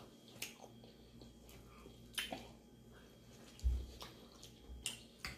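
Close-miked chewing of shrimp Alfredo pasta and biscuits: faint wet mouth sounds with a few sharp smacks and clicks, and a low thump a little past halfway.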